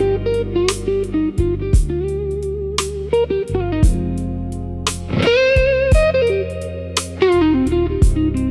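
Instrumental slow blues: an electric guitar plays a lead line over sustained bass notes and a steady drum beat, with a note bent upward about five seconds in.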